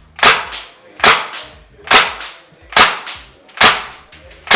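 WE/Cybergun Thompson M1A1 gas blowback airsoft rifle on green gas firing single shots at a steady pace, about one a second, six in all; each sharp crack of the blowback is followed by a fainter second crack.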